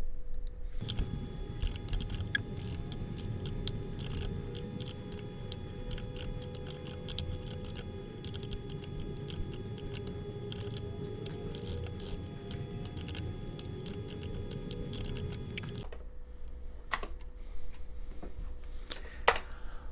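Typing on a Commodore 64 keyboard: many quick, irregular key clicks over a steady hum. The hum stops about 16 seconds in, leaving a few last clicks.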